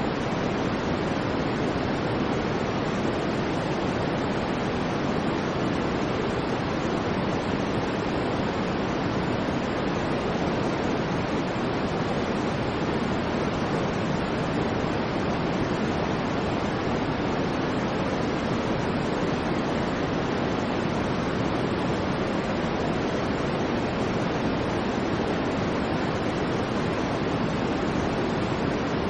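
Steady, unchanging synthetic white noise: an even hiss with no swells or breaks, weighted toward the low-middle range.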